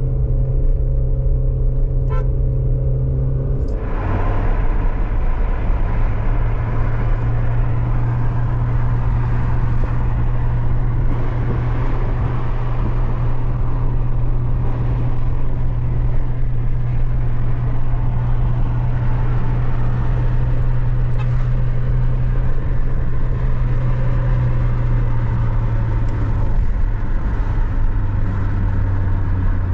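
Motor vehicle engine running steadily on the move; its note drops about four seconds in and again near the end.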